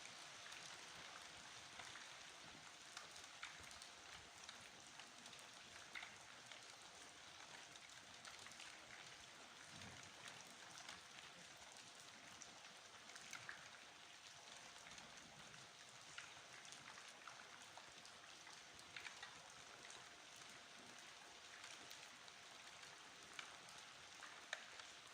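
Steady, soft rain falling: an even hiss with scattered individual drops ticking.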